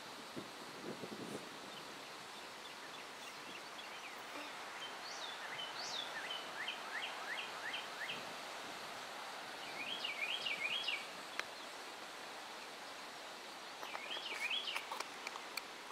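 Songbirds calling and singing over a steady outdoor hiss: a run of quick rising chirps, then a warbling phrase repeated twice.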